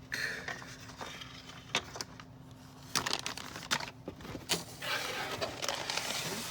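Small plastic bags and packaging being handled and pulled from a toy box: crinkling, with a few light clicks and knocks, and a longer spell of plastic crinkling near the end.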